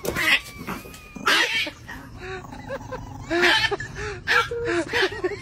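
Tabby cat yowling in a run of short cries that rise and fall in pitch, with a few louder noisy bursts between them.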